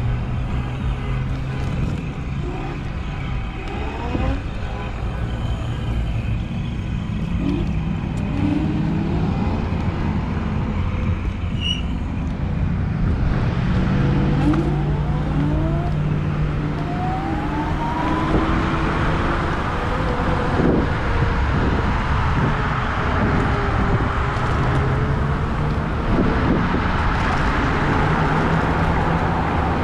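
Wolf Warrior dual-motor electric scooter on the move on street tyres: wind rushing over a chest-mounted microphone over a steady road rumble, with short rising whines from the hub motors as it picks up speed. The rush grows louder about halfway through.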